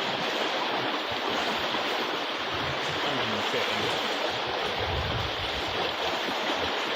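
Steady rush of wind and water past a sailing yacht under way.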